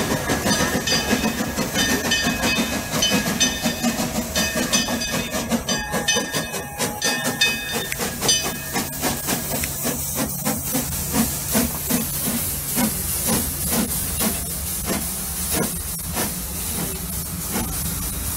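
Steam locomotive hissing steam, with a run of even chuffs, about two a second, starting about eight seconds in.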